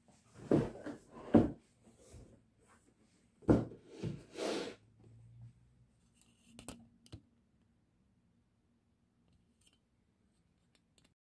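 Handling noise: a few sharp knocks and clicks with short rustles, then two lighter clicks about seven seconds in.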